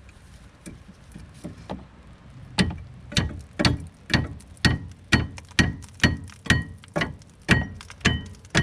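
Hammer striking a steel tool on a rusty brake bolt to break it loose: a few light taps, then about a dozen steady blows, two a second, each with a bright metallic ring.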